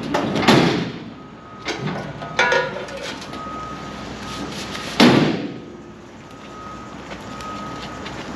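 The steel tailgate of a Chevy C-10 pickup slammed shut about five seconds in, the loudest sound, after earlier knocks and rattling as it is handled. A reversing beeper sounds faintly and repeatedly in the background.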